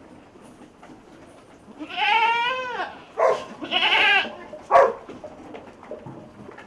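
Goat bleating: a long wavering bleat about two seconds in, then a short one, a longer one, and a brief sharp call a little before five seconds.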